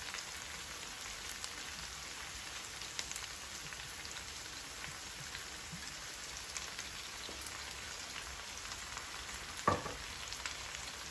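Pork and tofu sisig sizzling steadily in a frying pan, with scattered small crackles. One short, sharp knock comes near the end.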